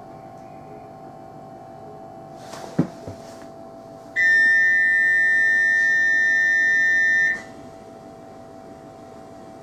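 Class 313 electric train's door-closing warning tone: a loud, steady high beep held for about three seconds, over the train's steady hum as it stands at the platform. Just before it, a short hiss and a thump.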